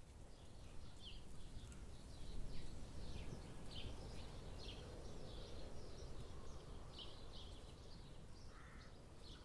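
Faint outdoor ambience of small birds chirping, many short, quick calls repeating throughout, with one lower call near the end, over a steady low background noise.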